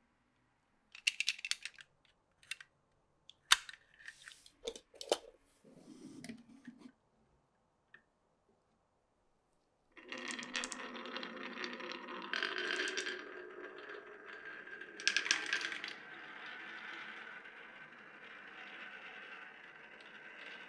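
Glass marbles on a wooden marble run: scattered clacks and clicks for the first several seconds, then from about ten seconds in a steady rolling rumble with a ringing tone that slowly fades.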